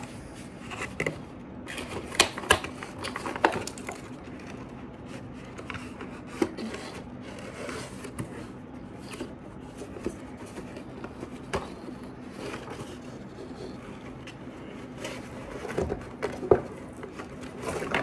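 Cardboard packaging being handled: a box insert and box lifted and turned, giving scattered scrapes, rustles and knocks, with clusters of sharper clicks about two to three seconds in and again near the end.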